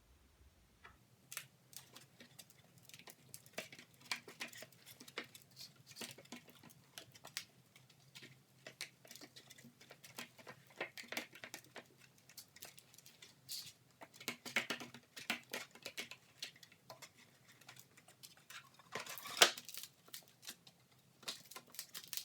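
Self-adhesive 120-grit sandpaper being handled and pressed onto an MDF sanding disc: scattered rustles, taps and crinkles, with one louder rustling scrape near the end. A faint low hum runs underneath.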